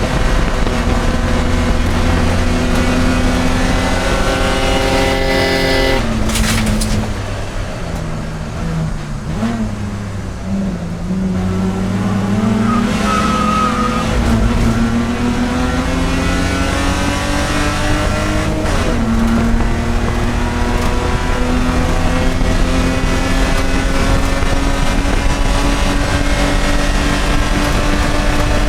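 Race car engine at racing speed: it climbs through the revs, then lifts off sharply about six seconds in. The revs stay lower and waver for a few seconds, then the engine accelerates hard again, with a quick drop in revs near nineteen seconds, like an upshift, and rising revs after it.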